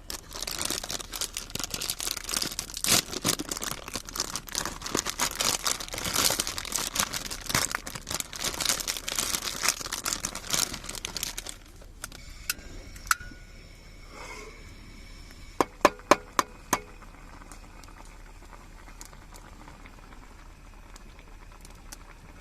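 Crinkling, rustling handling noise, dense with small crackles, for about eleven seconds, then it stops and a few sharp clicks follow.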